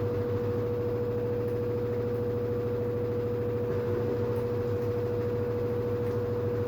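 LG FH4A8TDN2 front-loading washing machine on its spin cycle: the drum and motor run at a steady speed, with a constant whine over a low hum.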